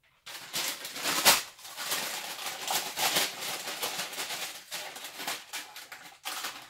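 Sheet of baking parchment rustling and crinkling as it is handled, with a louder rustle about a second in and another around three seconds.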